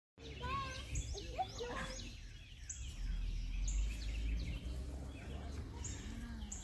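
Birds chirping, many short calls in quick succession in the first two seconds and fewer after, over a steady low rumble.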